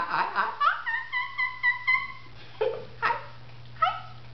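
A man's high falsetto squeal, held for about a second and a half with a wavering pitch, then a few short yelps and whoops.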